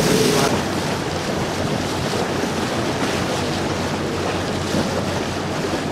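Steady wind buffeting the microphone and sea wash aboard a catamaran tour boat, with a faint low hum from the boat's diesel engines underneath.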